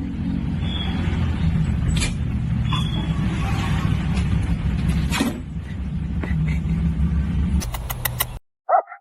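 A steady low rumble with a few scattered clicks and a quick run of clicks. It cuts off suddenly, and near the end a dog gives a short, sharp bark.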